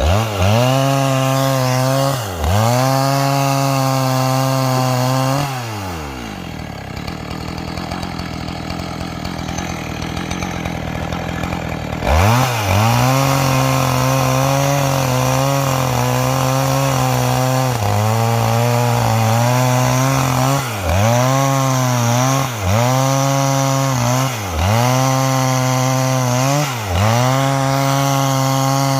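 Two-stroke chainsaw ripping garapa wood along the grain, its high engine note sagging briefly every couple of seconds as the chain bites. About five seconds in it drops to idle for several seconds, then revs back up sharply and cuts again.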